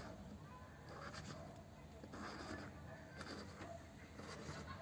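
Faint scraping and a few light clicks of parts being handled during the disassembly of a power steering pump.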